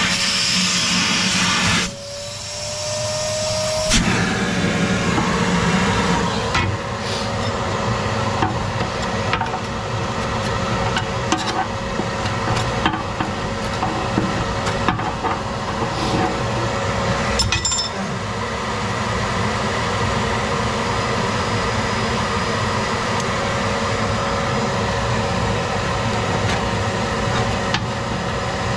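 A small motor running steadily with a constant whine, its pitch rising slightly in the first few seconds, under scattered scraping and knocking from hand tools on the stove parts.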